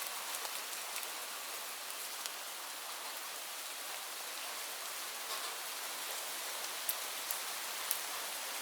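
Steady rain falling, an even hiss with sharper drop ticks here and there, a few of them standing out in the second half.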